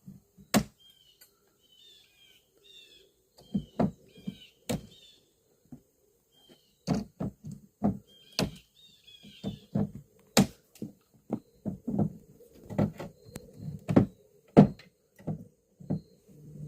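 Irregular knocks and thuds, sparse at first and then coming about one or two a second, with short high chirps in between early on.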